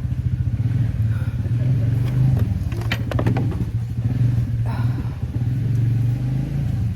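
ATV engine running steadily with a low, rapid pulsing drone. There are a few short clicks or rattles about three seconds in.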